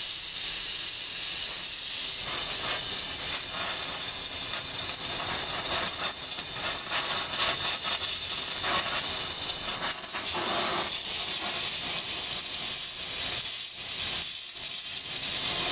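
Gas brazing torch flame hissing steadily as it heats the lugged bottom bracket shell of a steel bicycle frame during brazing.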